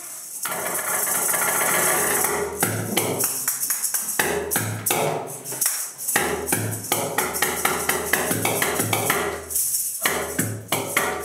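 Experimental percussive music: a hissing noise at first, then from about two and a half seconds in a fast, irregular run of sharp knocks and clicks over low thuds.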